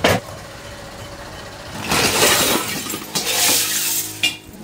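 Metal clanking and scraping as cast aluminium pans and their moulds are handled: a sharp clang at the start, two rough scraping stretches in the middle and another clank near the end.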